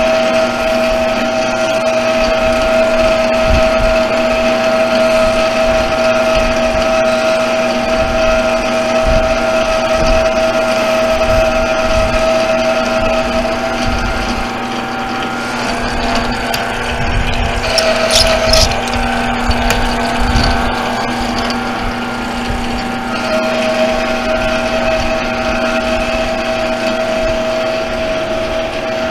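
BD 812 bench lathe running steadily with a motor and gear whine as it turns a brake rotor hub. For several seconds in the middle the whine weakens and changes pitch, and a brief high squeal comes a little past halfway. Low rumbling bumps of handling noise sound on the microphone throughout.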